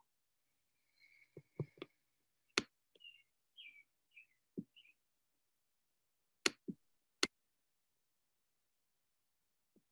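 A scatter of faint, sharp clicks and taps, with a few short high chirps between about three and five seconds in.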